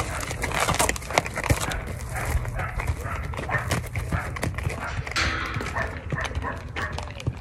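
Horse walking on a lunge line, its hooves clopping on dry, packed dirt in an irregular series of knocks.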